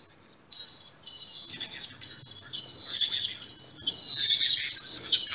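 High-pitched electronic whistling at two pitches, cutting in and out, from the Android phones' speakers as a video's sound is shared over Zoom, with a rougher hiss building toward the end. It starts about half a second in, after a brief silence.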